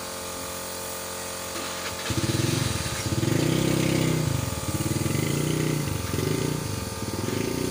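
A steady hiss from a paint spray gun. About two seconds in, a louder engine starts running, its note rising and falling unevenly.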